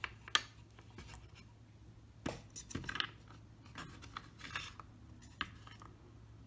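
Six-sided dice being picked up and set down in a wooden dice tray: scattered light clicks and knocks of dice on the wooden boards and against each other, with a cluster of clicks a little past two seconds in.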